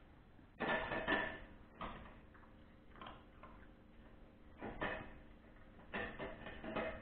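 Dogs eating dry kibble from stainless steel bowls on the floor, a Russian-European Laika puppy and a larger dog. Their muzzles knock and rattle the bowls in short bursts of clatter: about a second in, again around five seconds, and near the end.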